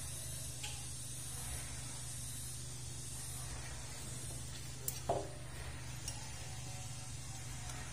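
Steady low hum and hiss, with a light metallic clink of a hand tool on the valve adjuster of a Honda TMX 125 engine about five seconds in.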